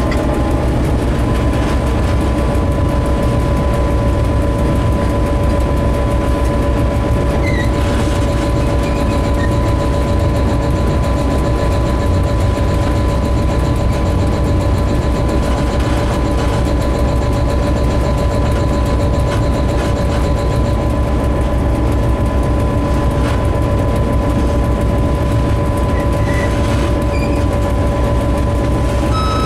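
Diesel locomotive running steadily along the line, heard from inside its cab: a heavy, even engine rumble with a steady whine held over it.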